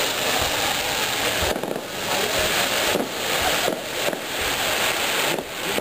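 Fireworks display going off: dense, continuous crackling with bursts that swell and fade about every second.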